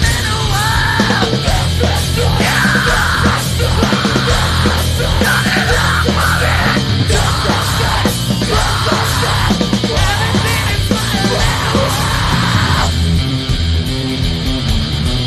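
Live rock band playing loud, with guitars, bass and drums under shouted vocals. The vocals stop about thirteen seconds in, leaving the band playing on.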